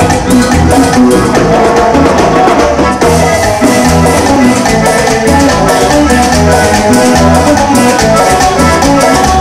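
Loud Latin dance music from a band: a bass line stepping from note to note over drums, with a steady shaker rhythm on top.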